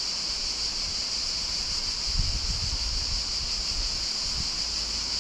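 Steady high-pitched insect chorus, with wind buffeting the microphone for a second or two around the middle.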